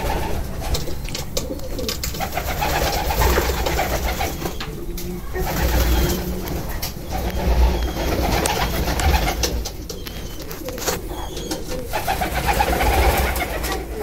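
Homing pigeons cooing in a loft: several low, warbling coos overlapping almost without a break, with a few short clicks among them.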